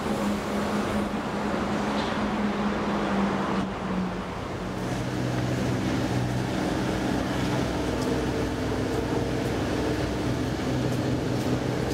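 Steady train running noise with a low motor hum as the S-Bahn finishes passing, then, about four seconds in, a steady city traffic din with a low engine drone.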